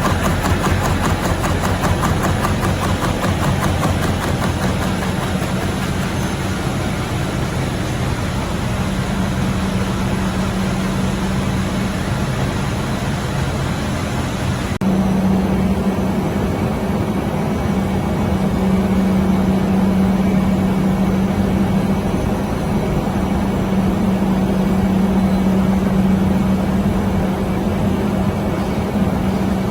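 Dog-treat production machinery running with a loud, steady mechanical hum and a fast, even rhythm at first. About halfway through the sound changes abruptly to a steadier, deeper hum, as from another machine.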